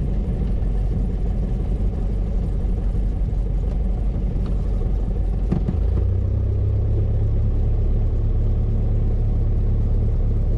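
Cessna 172 Skyhawk's piston engine and propeller running at taxi power, heard from inside the cabin as a steady drone. About six seconds in it turns into a steadier, deeper hum.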